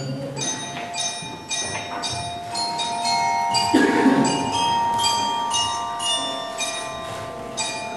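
Bell-like chimes struck in a steady run of ringing high notes, two to three a second, with held instrumental notes sounding underneath from about one and a half seconds in. This is the instrumental introduction to a choir song. A short burst of noise comes just before the middle.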